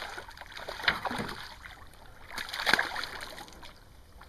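Hooked largemouth bass thrashing and splashing at the water's surface beside the boat: a few sudden splashes, the loudest nearly three seconds in.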